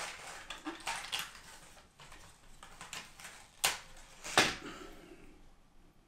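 Small hard plastic drone accessory parts clicking and rattling as they are handled and taken out of their packaging tray, with a few light clicks about a second in and two sharper clicks in the second half.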